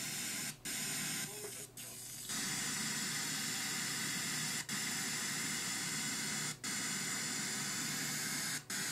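Demodulated FM audio from a software-defined radio receiver tuned to a pirate uplink on a UHF military satellite: a steady radio hiss, cut by brief audio dropouts about five times.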